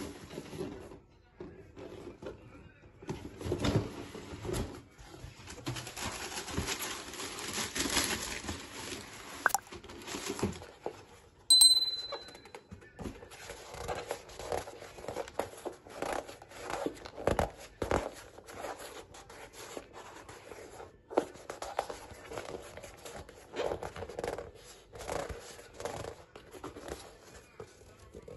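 Cardboard shoe box and tissue paper rustling and crinkling as the box is opened and the paper folded back, then scattered rubs and taps as a New Balance Furon V7 Pro football boot is lifted out and turned over in the hands. About twelve seconds in there is a sharp loud click with a brief high ring.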